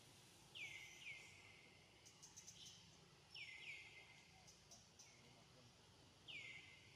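Faint high chirps of a bird: short falling notes in pairs, heard three times over a quiet background hiss.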